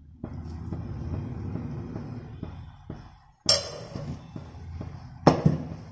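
A soft, muffled handling noise, then two sharp metallic clinks, one past the middle and one near the end, each with a brief ring: a metal ladle knocking against a stainless steel cooking pot.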